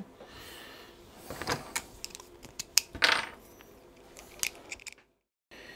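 Light metallic clicks and clinks of small metal parts being handled: a steel mounting bracket and tiny Torx screws coming off an iMac graphics card. The sound breaks off for about half a second near the end.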